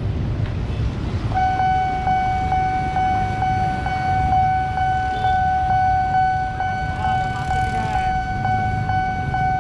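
Railway level-crossing warning signal switching on about a second and a half in: a steady high electronic tone with a regular pulse about two and a half times a second. Underneath, the low engine noise of motorbikes and a minibus crossing the tracks.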